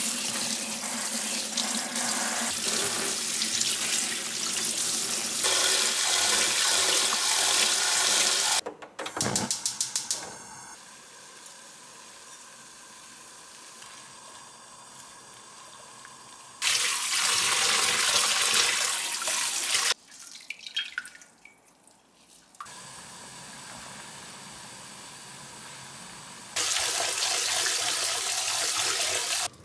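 Kitchen faucet running into a stainless steel sink as vegetables are rinsed under the stream: a steady loud rush of water in three stretches, the longest at the start, another about two-thirds of the way in and a short one near the end. Quieter kitchen sounds and a few clicks fill the gaps between.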